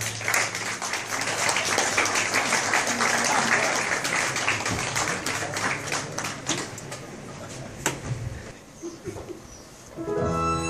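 Audience applauding after a piece, the clapping thinning out over several seconds to a few scattered claps. Near the end the string orchestra with keyboard starts the next piece.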